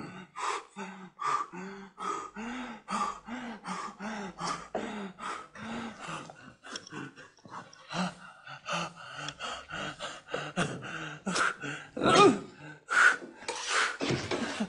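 A man breathing hard in rapid, voiced gasps, about two a second, with the gasps getting louder near the end.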